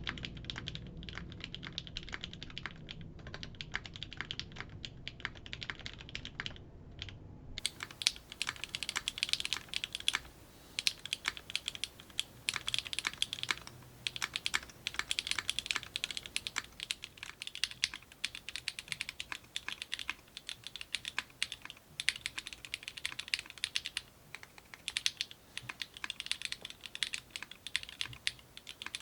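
Fast typing on a custom mechanical keyboard with clacky linear switches, sharp clacks coming in quick bursts with short pauses. About 8 s in the recording changes, the low hum dropping away and the clacks sounding brighter, as a different board takes over.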